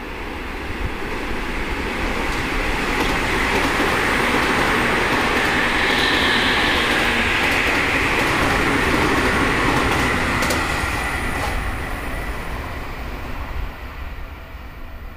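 Seibu Railway electric commuter train passing through a station at speed without stopping. Its running noise swells to a peak as the cars go by and fades as it leaves, with a few sharp wheel clacks over the rail joints near the end of the pass.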